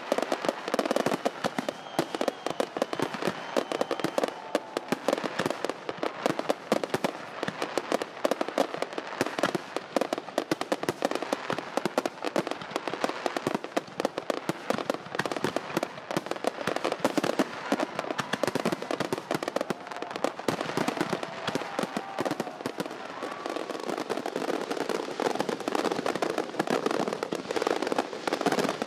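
Fireworks display: a dense, continuous run of bangs and crackles, many each second, with no let-up.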